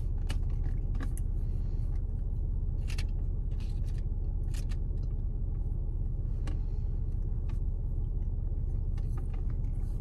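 Steady low rumble of a parked car idling, heard inside the cabin, with scattered light clicks and taps as wooden chopsticks pick at food.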